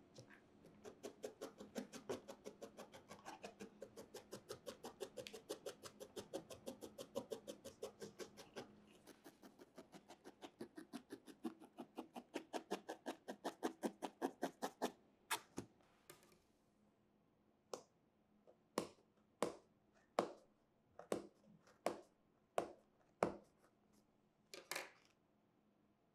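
Barbed felting needle stabbing into wool on a felting pad: rapid, even pokes at about five a second, changing about fifteen seconds in to single pokes spaced irregularly, roughly a second apart.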